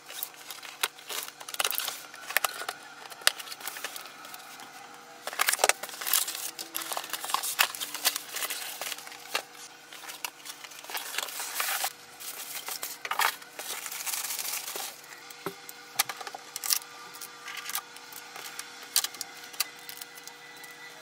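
Cardboard box and plastic packing being handled while a printer is unboxed: tape pulled off, flaps opened, irregular rustles, scrapes and knocks, with a few louder scraping stretches.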